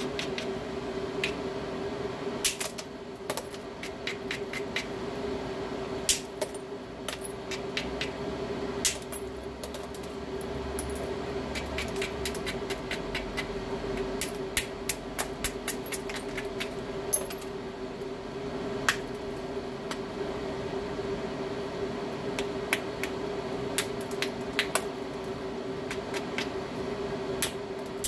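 Hammerstone striking the edge of a stone biface during knapping: sharp clicks of stone on stone at irregular intervals, some single blows and some quick runs of light taps, over a steady hum.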